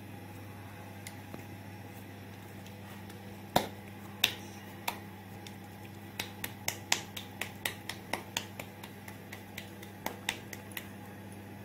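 Hands slapping and patting a ball of soft paratha dough between the palms. Two sharp slaps come a few seconds in, then a quick run of lighter slaps, two or three a second, over a steady low hum.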